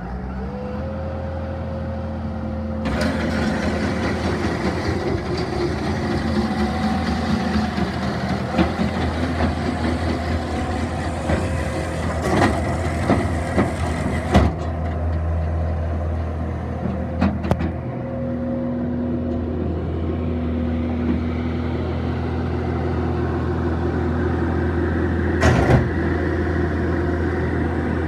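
Bobcat skid-steer loader's diesel engine running steadily with a whine that rises into place about half a second in, and the box sweeper's rotating broom scratching over gravel from about three seconds in. A few sharp clanks stand out from the steady noise.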